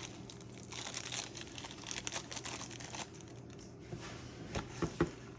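Plastic packaging crinkling and rustling as a castle nut is taken out of it, with a few light clicks near the end.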